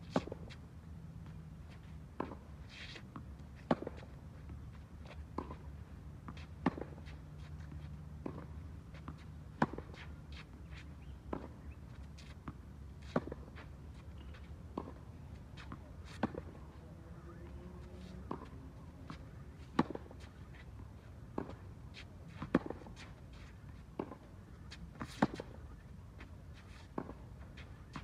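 Tennis rally on a hard court: sharp pops of a racket striking the ball, a loud one about every three seconds, with softer hits and ball bounces in between.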